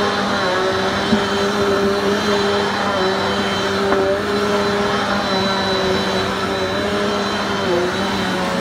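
Upright vacuum cleaner running steadily, a constant motor hum and airflow rush; its pitch dips briefly near the end.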